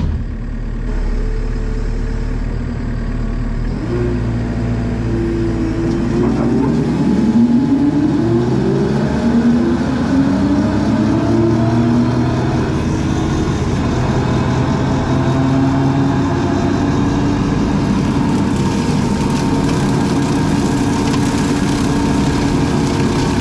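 Skid steer engine running hard with a CID brush cutter attachment on the front, its pitch rising and falling several times early on before settling into a steady drone.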